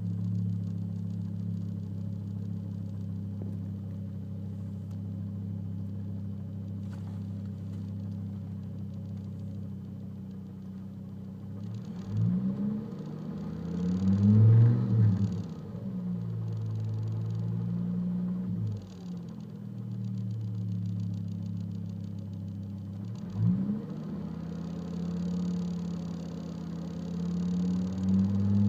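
2005 Volvo S40 T5's turbocharged 2.5-litre five-cylinder engine idling steadily, then revved up and let fall back three times, the second time highest and loudest. The owner reports a random misfire (code P0300) that shows as the revs increase.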